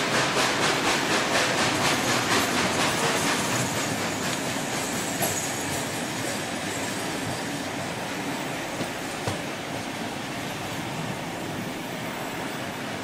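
Steam locomotive 3642, a NSW C36 class 4-6-0, climbing the grade. Its exhaust beats, about four a second, fade over the first few seconds as it draws away. Then the steady rolling noise and wheel clatter of its carriages passing below, slowly getting quieter, with a few sharp clicks.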